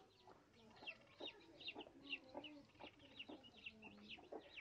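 Newly hatched Siruvidai country-chicken chicks peeping faintly, with many short, falling high chirps several times a second. A mother hen clucks softly and low among them.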